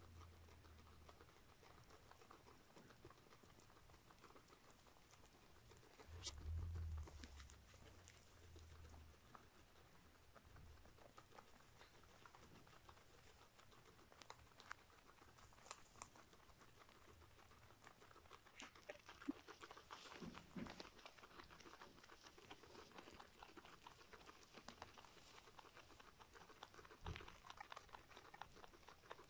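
Peruvian guinea pig eating hay: faint crunching chews and rustling of dry hay stalks, busier in the second half. There is a brief low rumble about six seconds in.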